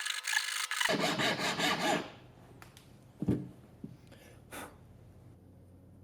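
Hand file rasping in quick strokes on the metal locating pin of an amber 7507 bulb's base, filing it down so it will slide into the corner-marker bulb carrier; the filing stops about two seconds in. Then come a single sharp knock and a few faint clicks.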